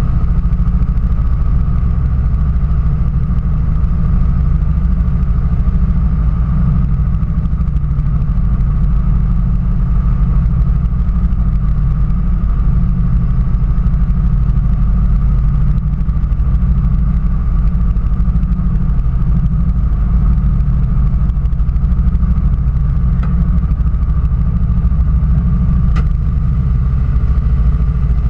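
Small engine of a railroad speeder idling steadily, with a couple of light ticks near the end.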